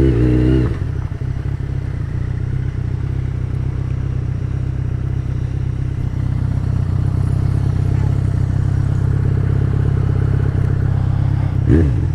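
Yamaha XJ6's 600cc inline-four engine riding at steady throttle after a brief falling note at the start, with a short rev rising and falling near the end.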